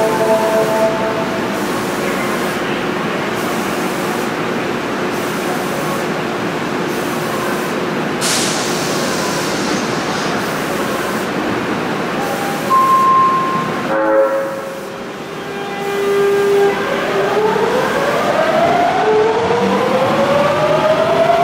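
Osaka Municipal Subway 66 series train: a short hiss of air about eight seconds in, then the horn sounded in a few short blasts between about thirteen and sixteen seconds. The train then pulls away, its traction motors whining steadily upward in pitch as it accelerates.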